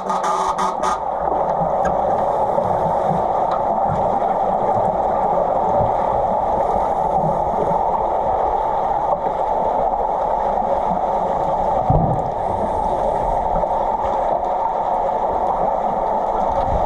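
Underwater pool sound picked up by a submerged camera: a steady, muffled rush of water as swimmers with fins move about, with brief hisses of bubbles now and then and a single knock about twelve seconds in.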